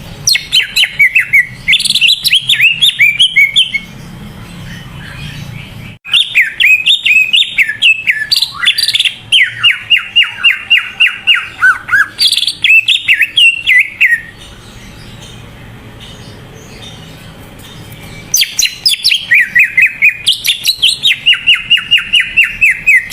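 Cucak ijo (green leafbird) singing loudly in three bouts of rapid, quickly repeated whistled notes, with pauses of a few seconds between them.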